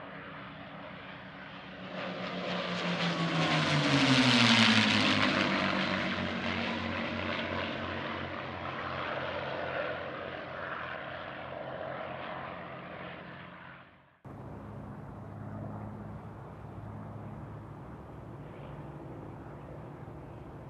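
Packard Merlin V-12 engines of a pair of P-51 Mustang fighters making a pass: the propeller drone swells to its loudest about four seconds in, drops in pitch as they go by, and fades as they climb away. About fourteen seconds in it cuts suddenly to a fainter, steady engine drone.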